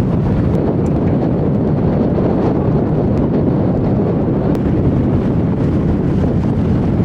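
Steady low wind rumble buffeting the microphone on the open deck of a tour boat under way, with the boat's engine and the rush of its wake beneath it.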